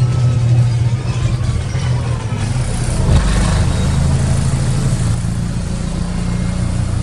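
Karosa B961 articulated city bus's diesel engine running, heard from inside the passenger cabin as a steady low drone, with a brief rush of noise about three seconds in.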